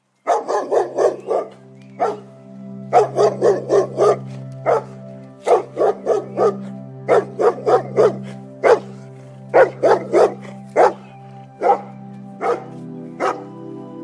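A dog barking in quick runs of several barks, with pauses between the runs, over background music with sustained notes.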